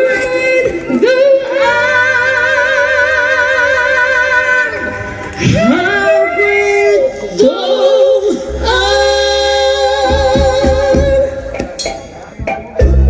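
Unaccompanied singing: voices hold long notes with vibrato, at times in two-part harmony, with short breaks between phrases.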